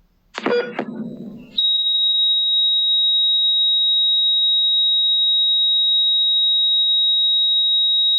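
Hospital heart rate monitor: after a brief, loud jumble of sound, a single high-pitched tone comes on about a second and a half in and holds without a break. This is the continuous flatline tone that signals no detected heartbeat.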